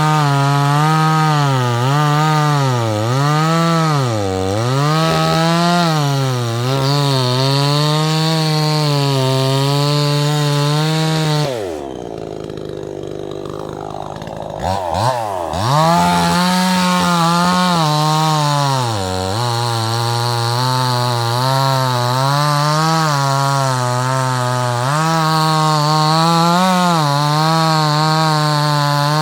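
Cheap two-stroke chainsaw running on fuel dosed with Lucas Octane Booster, its engine speed repeatedly rising and falling. About twelve seconds in, the engine drops away for about three seconds, then revs back up and runs on.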